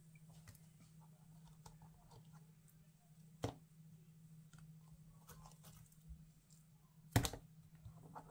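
A cutter blade pressing through thick glitter slime: faint crackling and soft clicks, with two sharper loud clicks, one about three and a half seconds in and one near the end.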